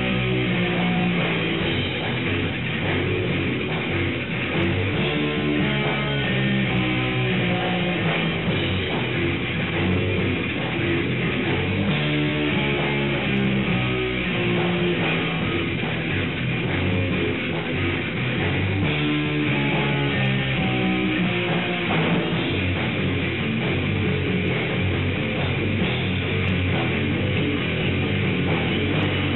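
Electric guitar played through an amp stack together with a drum kit: a rock band playing a song, loud and steady.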